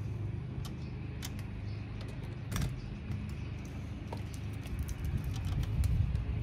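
Sparse, irregular metallic clicks and clinks of hand tools and sockets being handled while a car battery terminal is worked loose, over a steady low rumble.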